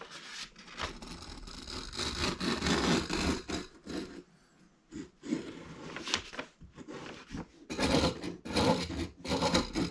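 Caliper jaw tip scratching a circle into wooden wall boards: rough scraping strokes, repeated with short pauses.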